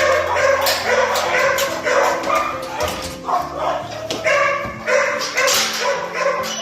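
Dogs barking repeatedly in quick, overlapping bursts, with background music of held notes underneath.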